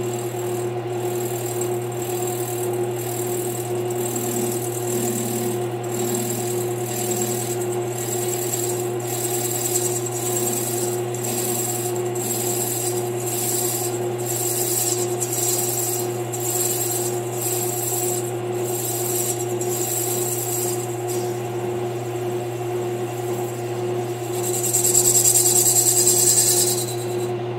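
Metal lathe running with a steady motor hum while the cutting tool faces the base of a Stihl 031 chainsaw cylinder, decking it to set the squish clearance. The cut is a high hiss that pulses a little faster than once a second, and it grows louder for about two seconds near the end.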